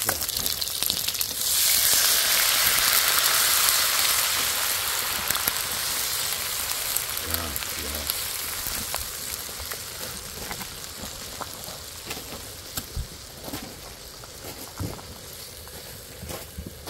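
Pork belly sizzling in a hot pan, then makgeolli poured in about a second and a half in: a sudden loud hiss as the rice wine hits the hot pan, easing slowly into a softer fizzing simmer. A few light clicks of metal tongs against the pan come near the end.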